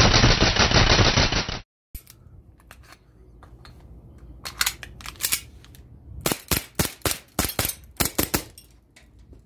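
Crosman AK-1 air rifle firing a rapid full-auto burst that cuts off abruptly about a second and a half in. It is followed by quieter scattered clicks and clusters of sharp snaps.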